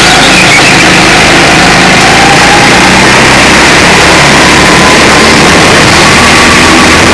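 Indoor go-kart's engine running at speed, heard from a camera mounted on the kart: loud and continuous, its pitch wandering slightly with throttle.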